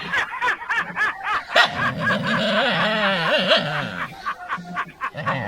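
People laughing and snickering, with a few sharp clicks in the first couple of seconds.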